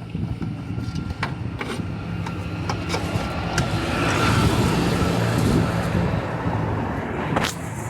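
A motor vehicle's engine running, growing louder about four to six seconds in and then easing off, with several light sharp clicks over it.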